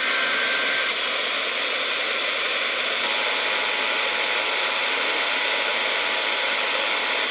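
Steady hiss of static from a weather radio receiver between announcements. About three seconds in, a faint steady two-tone signal starts and holds, the kind of attention tone that comes before an Emergency Alert System warning.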